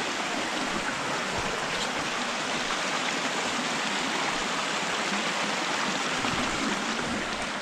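Steady rush of water from the Júcar river, here a small mountain stream near its source.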